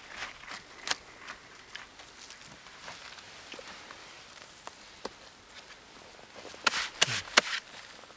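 Scattered soft clicks and scrapes of someone shifting about in a dry soil trench, with a quick run of louder sharp knocks about seven seconds in.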